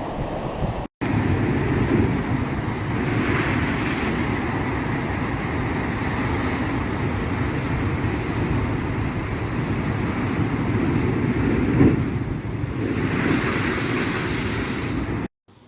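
Sea surf: a steady rush of waves with two louder surges, one about three seconds in and one near the end, cut off abruptly.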